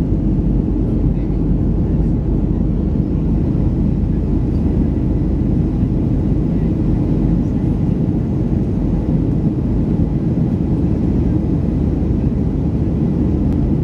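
Cabin noise inside a Boeing 737-300 in flight, heard from a window seat over the wing: the steady low rumble of its CFM56 turbofan engines mixed with the rush of air over the fuselage.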